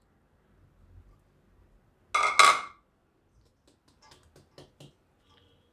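Steel flour sieve knocked and shaken against a steel mixing bowl while sifting wheat flour and semolina: one louder metallic clatter about two seconds in, then a quick run of light taps.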